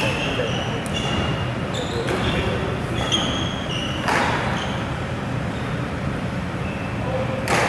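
Ambience of a busy badminton hall between points: court shoes squeak briefly on the floor every so often, with a sharp thud about four seconds in and another near the end.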